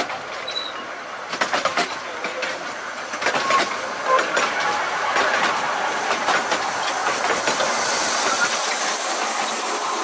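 Carriages of a 15-inch gauge miniature railway train rolling past on the rails, the wheels clicking over the rail joints over a steady hiss of wheels on track. The hiss grows stronger near the end.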